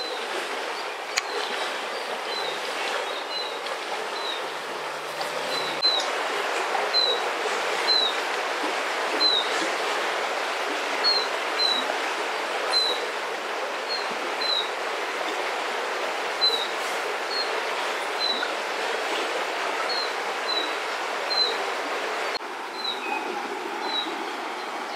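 Steady rush of a flowing river, with a small bird repeating a short, high, downward chirp about once or twice a second.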